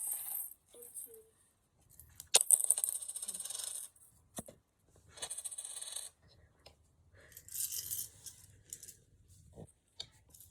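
Small metal coins jingling and clinking as they are handled, in three bursts of a second or so each, with a few separate light clicks between.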